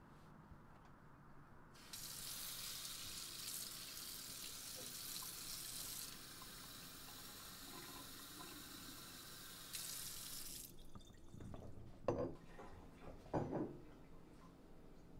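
Water from a kitchen faucet running into a glass carafe. It starts about two seconds in and is shut off after about nine seconds, followed by a few short knocks near the end.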